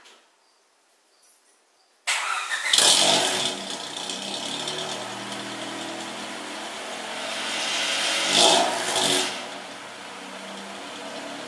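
Honda Civic four-cylinder engine cold-starting through a newly installed aftermarket exhaust with a 4-inch rolled tip. About two seconds in it cranks briefly and catches with a loud flare, then settles into a steady idle. The idle gets louder once about eight seconds in and drops back.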